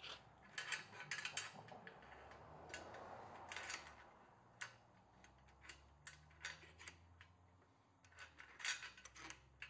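Steel chain links clinking and rattling against the steel plate of a homemade pipe-clamping welding jig as the chains are hooked into place. Faint, scattered metallic clicks in several small bunches, with a short scrape of metal on metal about three seconds in.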